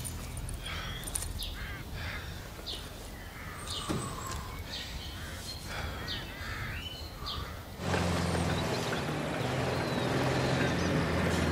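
Birds giving repeated short calls over a low steady hum. About eight seconds in, this cuts abruptly to a louder steady noise with a low drone.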